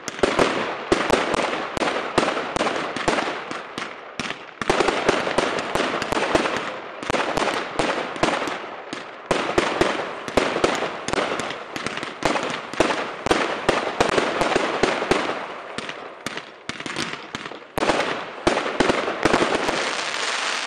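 Aerial fireworks going off in a dense, rapid volley of bangs and crackle, many reports a second, with short lulls about four and nine seconds in.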